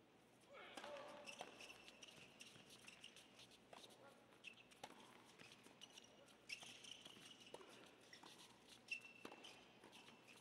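A faint tennis point on an indoor hard court: rubber-soled shoes squeaking on the court surface, and sharp racket-on-ball hits about once a second after the first few seconds.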